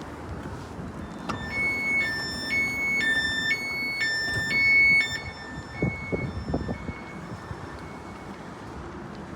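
Electronic two-tone warning alarm alternating high and low about twice a second for a few seconds, then fading out with echo. A few low knocks follow over steady background rumble.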